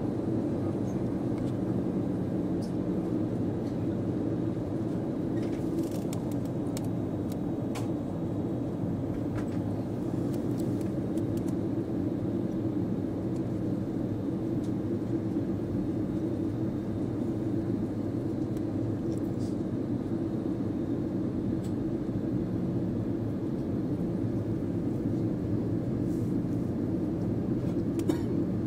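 Steady drone of an Airbus A320's engines and airflow, heard inside the passenger cabin on descent.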